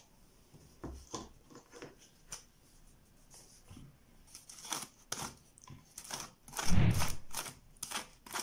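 A paintbrush brushing and dabbing glue over crumpled aluminium foil on a head form: a run of short scratchy rustles and taps, with one louder thud about seven seconds in.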